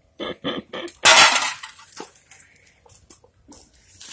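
Short clinks and rattles of objects being handled, with one louder crinkling clatter about a second in.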